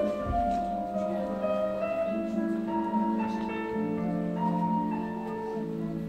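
Instrumental music: a melody of held notes over a steady bass line.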